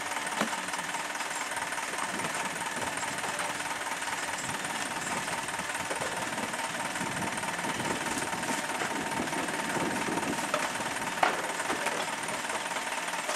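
Idling diesel engine of a small cab-over garbage truck, a steady mechanical running with no revving. A few light knocks sound over it, with one sharper knock about eleven seconds in.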